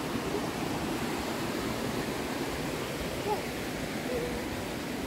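River rapids rushing, a steady, even wash of whitewater noise.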